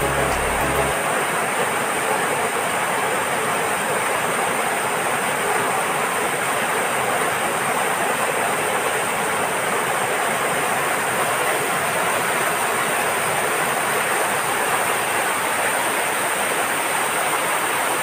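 Waterfall: white water cascading over rocks, a steady rushing noise.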